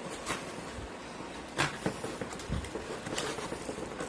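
Scissors cutting through cardboard: irregular snips and crunches, with a few sharp clicks.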